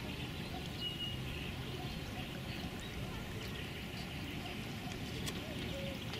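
Quiet open-air ambience: a steady low rumble with faint, scattered short bird chirps.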